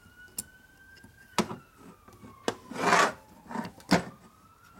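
Sharp metal clicks and a short scrape as duckbill pliers push a steel E-clip into its groove on the transmission kicker cover, the loudest clicks about a second and a half in and near the end. A faint siren slowly rises and falls in the background.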